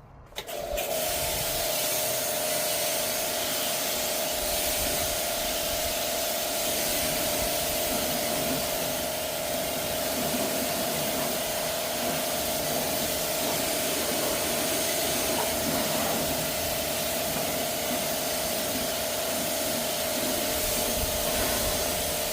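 Kranzle pressure washer running, its water jet spraying in a steady hiss over a steady motor hum as it rinses soap off a motorcycle. It starts about half a second in.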